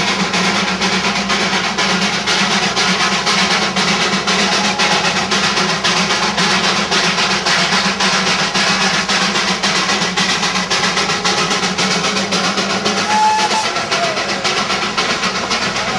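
Darjeeling Himalayan Railway B Class 0-4-0 saddle tank steam locomotive running, with a fast, even beat of exhaust chuffs.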